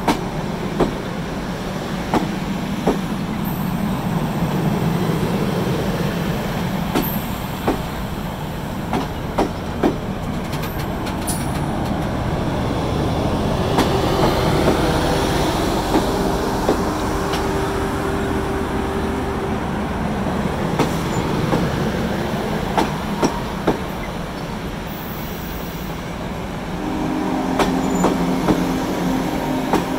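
Union Pacific streamlined passenger cars rolling slowly past on steel wheels: a steady rumble with irregular sharp clicks as the trucks cross rail joints. A squealing tone from the wheels sets in for several seconds around the middle and again near the end.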